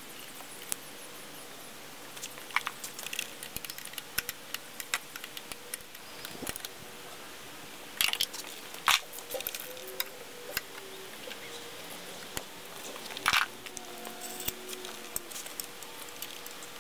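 Irregular light metallic clicks and clinks of hand tools and bolts being handled on top of the engine, with a few sharper clacks among them.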